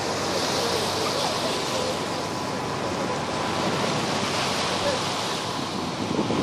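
Steady rushing of water and wind from a moving dive boat under way on choppy sea, with a faint steady hum underneath.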